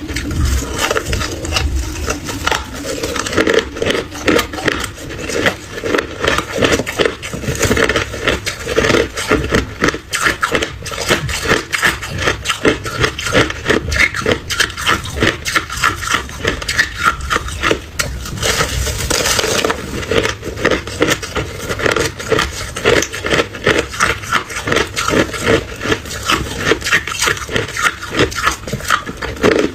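A person chewing and crunching ice, a steady run of sharp crunches several times a second.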